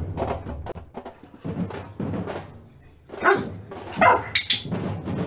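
A dog barking a few short times, starting about three seconds in, over background music with percussion.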